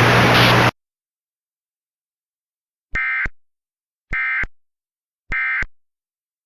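Hissing noise with a low hum cuts off under a second in; after a silence come three identical short, harsh digital bursts about a second apart: the EAS SAME end-of-message data tones that close an emergency alert.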